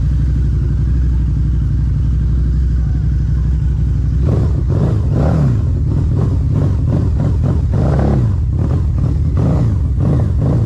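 Harley-Davidson V-Rod's liquid-cooled V-twin idling, then revved several times from about four seconds in, the pitch rising and falling with each twist of the throttle.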